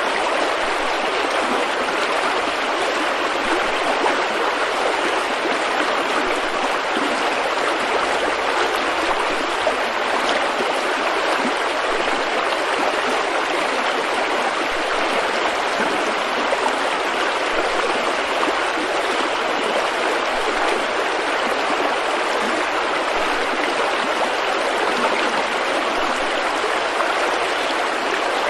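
River rapids: water rushing steadily over rocks, a continuous even rush without pauses.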